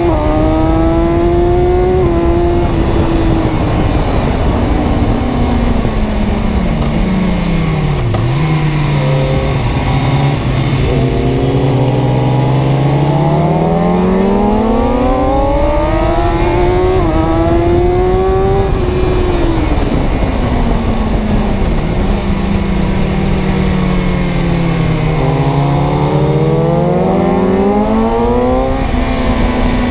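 Car engine running under load, its pitch sinking slowly as it slows, holding low, then climbing again as it speeds up, and repeating the fall and rise near the end.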